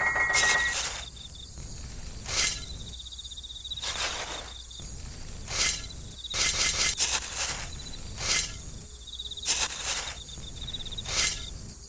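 Crickets trilling in pulses, with a steady high insect tone underneath. About ten brief scratchy noises come at uneven intervals across it.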